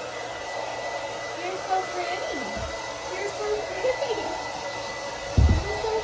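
Handheld hair dryer blowing steadily, with a thin high whine over the rush of air. Heavy thumps about five and a half seconds in are the loudest sound.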